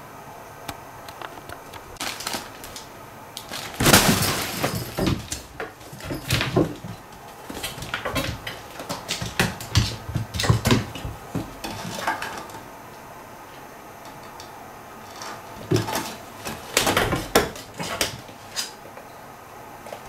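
A cat scrambling in and around a collapsible nylon fabric play tunnel on a wooden floor: irregular bursts of rustling fabric and light knocks and clicks. The loudest burst comes about four seconds in, with more clusters in the middle and near the end.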